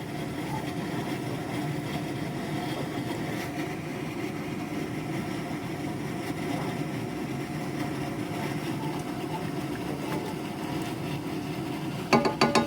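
Steady low rumbling hum with no change in level. A short burst of voice comes in near the end.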